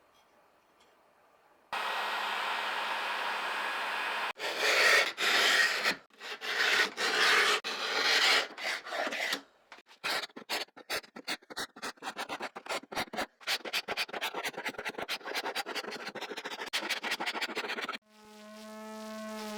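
Hand rubbing and scraping strokes on a surface during restoration work. A steady hiss gives way to irregular strokes, then a fast run of short scrapes. Near the end a small power tool starts up with a steady hum.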